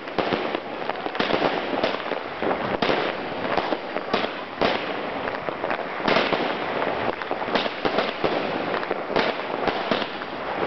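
Two Weco Big Crackles firework batteries going off together: a dense, continuous crackling of many small pops, with stronger bangs every second or two.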